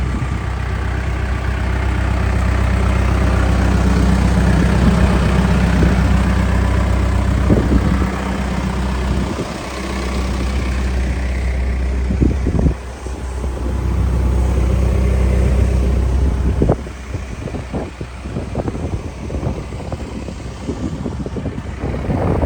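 Case 590 backhoe's 110 hp FPT diesel engine running, its speed and load rising and falling several times. About three-quarters of the way through the engine drops back, and short knocks and clatter follow.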